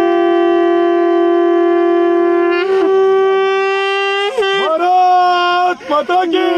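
Conch shell blown in long, steady blasts. The note breaks and restarts about two and a half seconds in and bends again past the middle, then ends in a few short, wavering blows.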